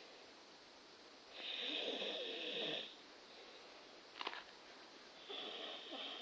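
A sleeping person snoring: two snores, each about a second and a half long, some four seconds apart, with a brief click between them.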